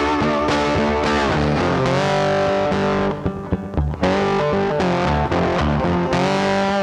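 Background music led by distorted electric guitar with bending notes over a steady beat, thinning out briefly about halfway through.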